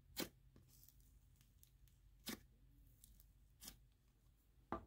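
Fluffy pink clay slime pressed and pulled by fingers in its tub, giving four short, sizzly crackles spread across the few seconds, with near silence between them.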